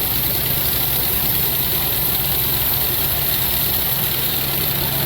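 Sawmill machinery running steadily with an even, engine-like drone and no sudden changes.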